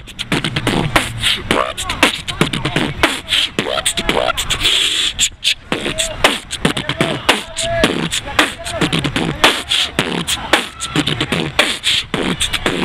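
Human beatboxing: rapid mouth-made kick, snare and hi-hat pops and clicks in a steady hip hop rhythm, with short hummed and sung vocal glides woven in.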